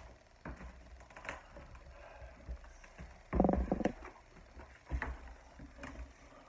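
Quiet handling noises as a person moves about and sits down: scattered light knocks and rustles, with a louder short sound about three and a half seconds in.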